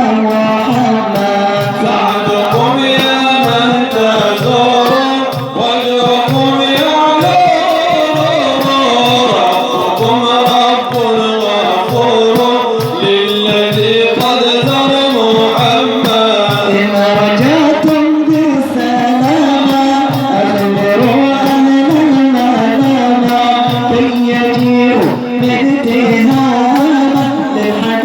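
Egyptian Sufi devotional music (inshad): a winding melodic line, sung or played, over a steady hand-drum beat.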